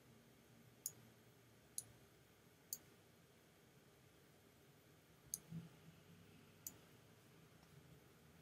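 Computer mouse button clicking, five short sharp clicks: three about a second apart near the start and two more spaced out later, over faint room tone.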